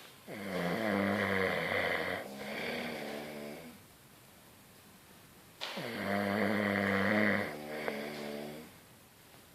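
Snoring that the uploader calls not normal: two long, pitched snores about five seconds apart, each with a brief break partway through.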